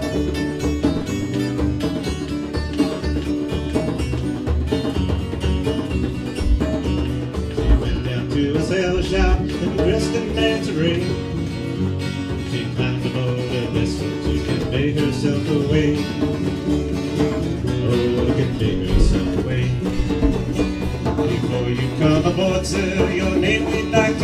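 Acoustic string band playing: strummed and picked acoustic guitars over an upright bass, with a hand drum keeping the beat.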